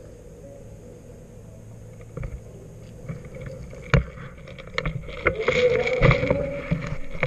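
Handling and movement noise on a rifle-mounted camera: a low rumble, a sharp knock about four seconds in, then a louder stretch of irregular clattering knocks and rustling as the gun is swung about.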